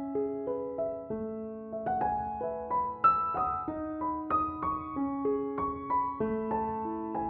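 Music: a piano or keyboard playing a slow melody, notes struck one after another and left to ring.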